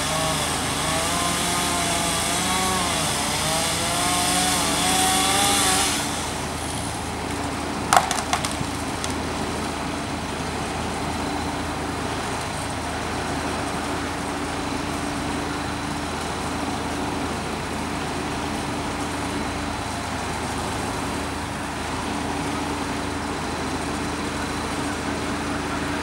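Chainsaw running, its pitch rising and falling as it cuts, then stopping about six seconds in. About two seconds later comes one sharp crack with a few smaller knocks after it, over the steady hum of idling truck engines.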